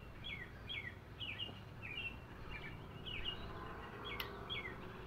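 A songbird chirping over and over in short falling notes, a few each second, with a single light click about four seconds in.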